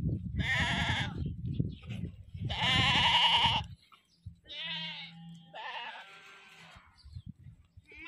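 Sheep and goats in a pen bleating: four wavering bleats, the second, about three seconds in, the loudest. A low rumbling noise underlies the first half and stops a little before the middle.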